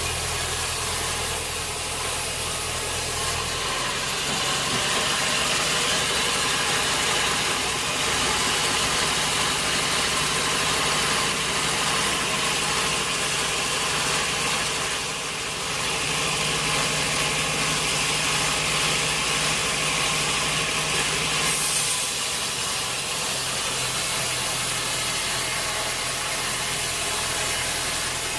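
Sawmill saw and its drive motor running steadily. The hum shifts in pitch a few times, with a brief dip about 15 seconds in.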